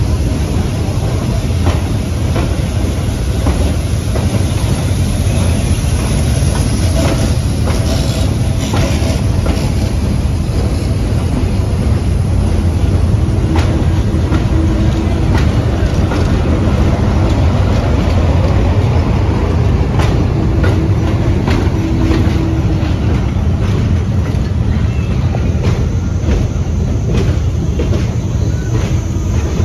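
Vintage New York subway cars running past on an elevated steel track: a steady rumble of wheels with a rapid run of rail-joint clicks, and a faint wheel squeal a couple of times.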